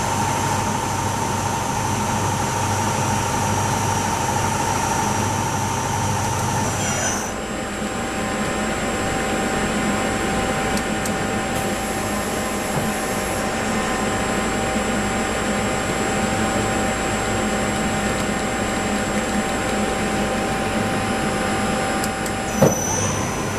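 Mori Seiki AL2 CNC lathe running, a steady mechanical hum with high whining tones. About seven seconds in the running sound changes abruptly and settles at a different pitch, as the machine changes speed or operation. A single sharp click comes near the end.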